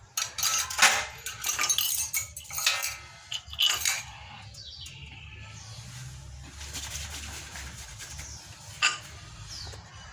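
Metal tools and parts clinking and clattering as they are handled, in a busy run of knocks over the first four seconds, then quieter with one sharp clink near the end.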